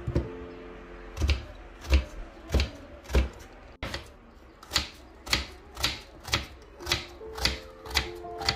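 Kitchen knife slicing through an onion and knocking on a wooden cutting board in an even rhythm, about two strokes a second, with a brief break a little under halfway through. Soft background music underneath.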